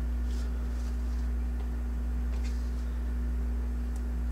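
Steady low hum with a few faint light ticks as fingers work a small bent wire pin into model railway track beside the turnout's throw bar.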